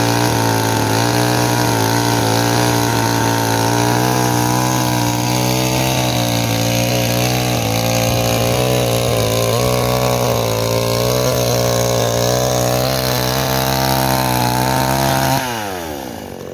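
Two-stroke gasoline chainsaw running at high revs as it cuts through logs, its pitch holding steady with slight wavering under load. Near the end the throttle is released and the revs fall away quickly.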